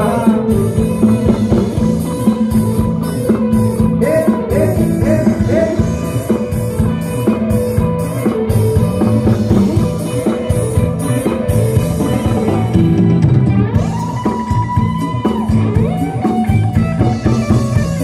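Live band music with a singer: a song sung over electric guitar and drums, with a steady beat.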